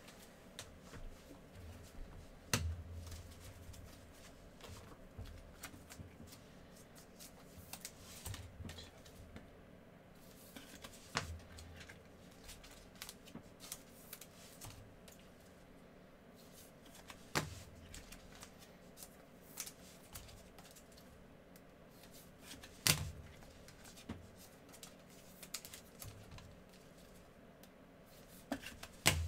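Trading cards being handled with gloved hands: faint sliding and rustling of cards and clear plastic card sleeves, with about five sharp taps several seconds apart.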